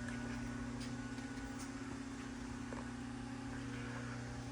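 Steady low electrical machine hum, a constant drone with a few faint ticks.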